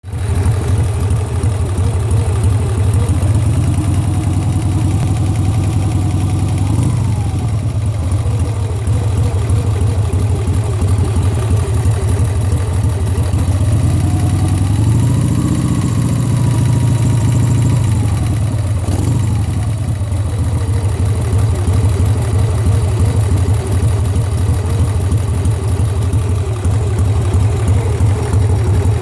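Harley-Davidson Sportster air-cooled V-twin engine idling, revved up and let back down twice, a few seconds in and again around the middle. It carries a knock that the owner suspects may be a bad lifter.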